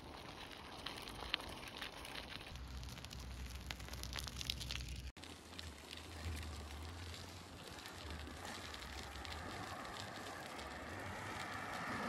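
Footsteps on a frost- and snow-covered footpath, an irregular crunch and crackle, with a short break in the sound about five seconds in. In the second half a car approaches on the road, its tyre noise swelling toward the end.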